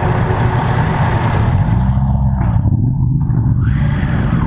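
Triumph Tiger Sport 660's three-cylinder engine running under way on track, its revs rising and falling about halfway through.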